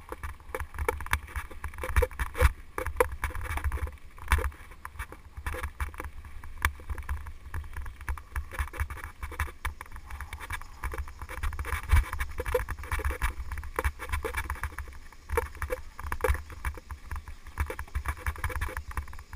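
Mountain bike riding over a rough, stony dirt track: a continuous jumble of irregular knocks and rattles as the bike jolts over stones and ruts, over tyre noise on gravel and a low wind rumble on the microphone.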